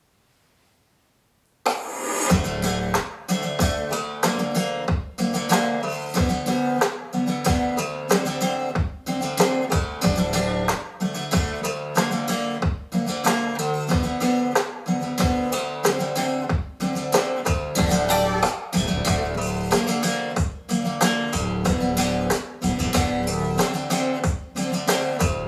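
Near silence, then about two seconds in a song starts: strummed guitar over bass in a steady rhythm.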